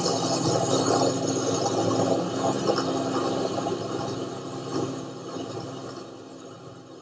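Aircraft piston engines droning steadily with a low hum, fading away over the last few seconds.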